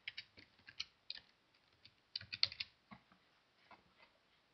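Typing on a computer keyboard, with quick runs of key clicks in the first second and again just after two seconds in, then a few scattered keystrokes.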